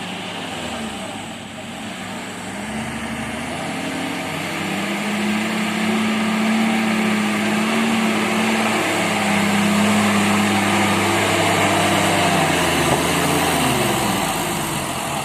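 Engine of a fully loaded vehicle pulling under strain: it revs up over the first few seconds, holds a steady high pitch, then drops back near the end.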